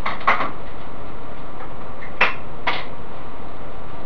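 A few light clicks and knocks from handling a laptop as work on it begins, three in all, over a steady hiss.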